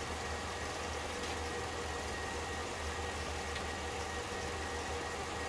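Steady running whir and hum of an Elmo FP-C Dual 8mm film projector playing back Super 8 film, with a low hum, a couple of thin steady tones and an even hiss.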